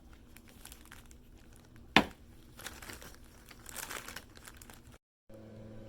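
Plastic bag crinkling and rustling while small parts are handled inside it, with faint scattered clicks and one sharp click about two seconds in.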